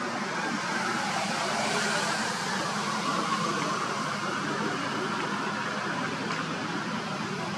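Steady ambient noise, an even hiss-like wash with no distinct events.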